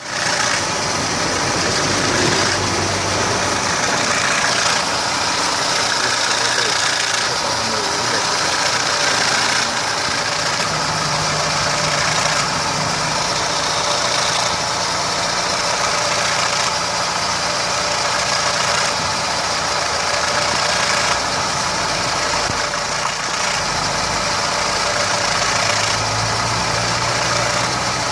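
Ford Scorpio engine running steadily at idle, with a knocking rattle from its timing chain.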